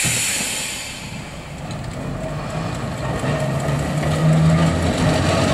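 Manx Electric Railway tramcar moving off and drawing nearer, its electric traction motors humming low and rising slightly in pitch as it gathers speed, growing louder towards the end. A hiss at the start dies away within the first second.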